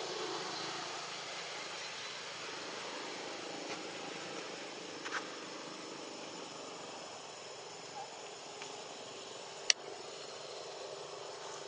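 Steady outdoor background hiss, with one sharp click about ten seconds in and a few fainter ticks before it.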